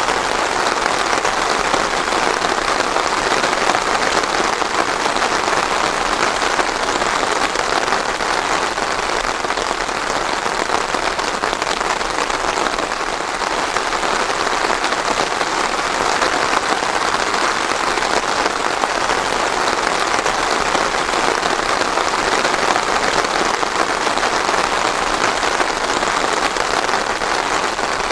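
Steady rain falling on surfaces, a dense, even hiss of many drops with no thunder.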